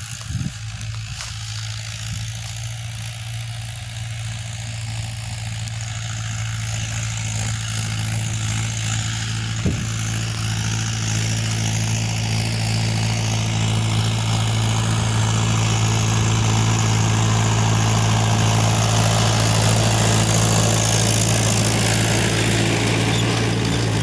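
Mahindra 575 DI tractor's four-cylinder diesel engine running steadily under load while pulling a seven-disc harrow through ploughed soil, growing steadily louder as it approaches.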